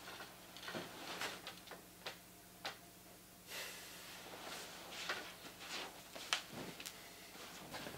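Bedclothes rustling and soft knocks as a person shifts and climbs out of bed, with one sharper click about six seconds in.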